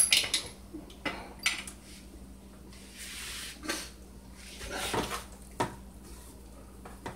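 Kitchen clatter: a handful of separate knocks and clinks of metal pans and utensils being handled, with a short soft rustle about three seconds in. Near the end, hands toss floured beef short ribs on an aluminium sheet pan.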